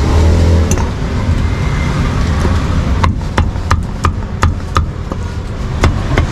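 A cleaver chopping roast meat on a chopping board: sharp, even knocks about three a second, starting about halfway through. Under it runs a steady low rumble of road traffic.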